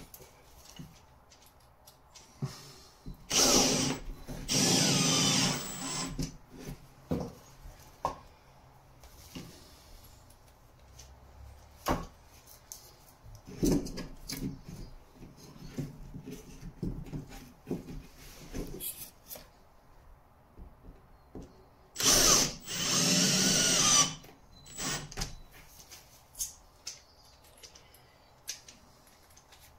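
Cordless drill-driver running in two bursts of a few seconds each, about three seconds in and again about twenty-two seconds in, driving screws through the plasterboard into a timber batten. Scattered short knocks and clicks come in between.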